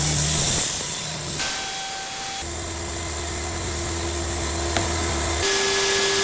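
Cooks AC36 bandsaw sawmill running and cutting white oak: a steady machine hum under a hiss of cutting. The hum's pitch and the hiss shift abruptly several times.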